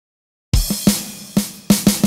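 A song's drum intro begins about half a second in: a run of loud, unevenly spaced drum hits (kick and snare) with cymbal wash, before any melody or singing.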